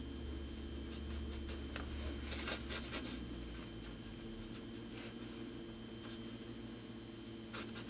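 Paintbrush scratching and dabbing acrylic paint onto a stretched canvas: a few short, scratchy strokes, most of them about one to three seconds in and one more near the end, over a steady low hum.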